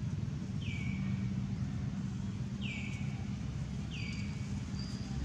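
Three short high calls, each sliding down in pitch and holding briefly, about a second or two apart, over a steady low hum.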